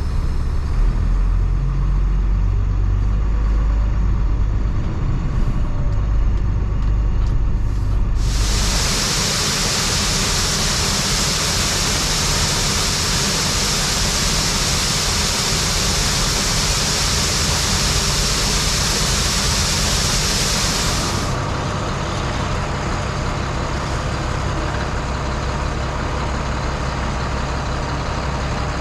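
Truck engine running, heard from inside the cab, with a strong low rumble. About eight seconds in a loud steady hiss starts, lasts about twelve seconds and cuts off suddenly while the engine keeps running.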